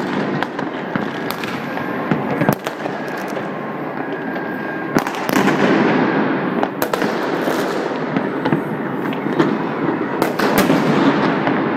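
Mass New Year's fireworks going off across a city: many sharp bangs of rockets and firecrackers, some close and some distant, over a constant crackling din.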